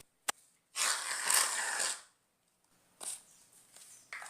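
Aerosol can of shaving foam spraying, a steady hiss of a little over a second, just after a sharp click.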